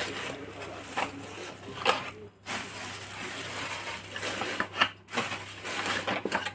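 Thin plastic bags crinkling and a plastic bottle crackling as the bags are pushed and squeezed into the cut bottle by hand, in irregular rustles and sharp crackles.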